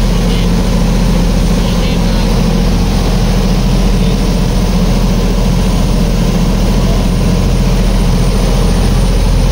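Khlong Saen Saep canal express boat's diesel engine, heard from on board as a loud, steady low drone while the boat is under way.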